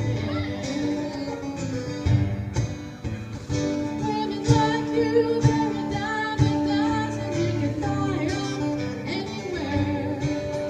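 Live country song: a woman singing lead, accompanied by two strummed acoustic guitars.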